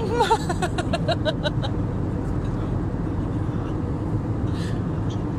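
Steady low rumble of airliner cabin noise from the engines and air system. A person's voice breaks in briefly during the first second and a half.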